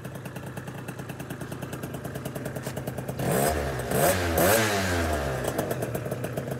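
Motorcycle engine idling with a rapid, even pulse, then revved in a few quick blips from about three seconds in, each rising and falling in pitch.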